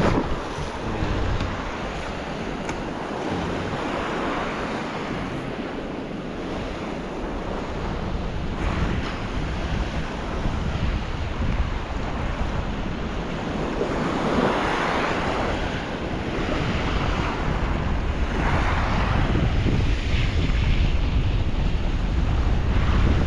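Gale-force wind buffeting the microphone with a heavy low rumble, over sea surf washing on a rocky shore, rising in several surges as waves break.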